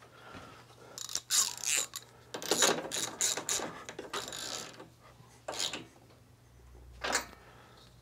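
Socket ratchet clicking in several short runs of strokes, then twice more on its own, as a spark plug is run into a Briggs & Stratton flathead engine.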